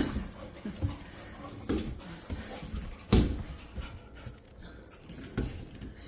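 Electronic mouse squeaks from a self-rolling furry cat-toy ball, coming in repeated groups of short high chirps, with several dull thumps between them.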